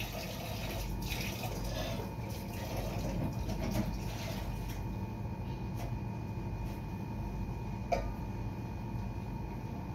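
Steady background hiss with a faint steady hum, broken by a single short click about eight seconds in.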